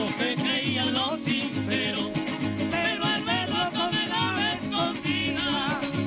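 Golpe tocuyano, the traditional music of Lara, Venezuela, played live by a folk string ensemble: strummed cuatros and other small guitars in a brisk, driving rhythm, with a wavering melody line above and a repeating low beat beneath.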